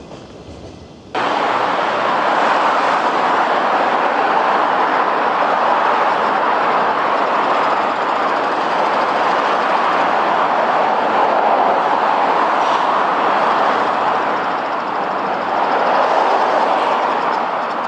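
A train running close by: a loud, steady rolling noise of steel wheels on rails that starts abruptly about a second in and holds with no clear rhythm.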